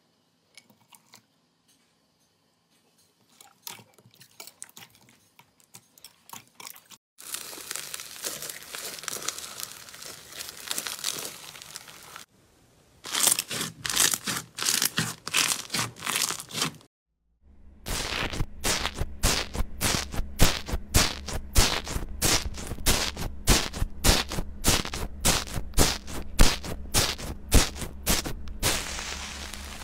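Hands squeezing and poking fluffy and foam slime, making crunchy, crackling pops and clicks. These are sparse and faint for the first few seconds, then dense, with two short breaks. In the last part a rapid string of loud crackles runs over a low steady hum.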